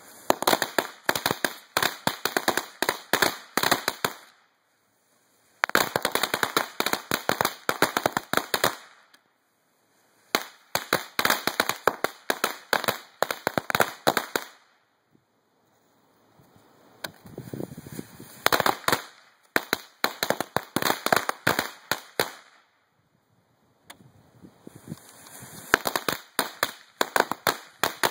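Strings of Cutting Edge ladyfinger firecrackers going off, each a rapid, uneven run of small sharp bangs. There are five runs of a few seconds each, with short silent gaps between them.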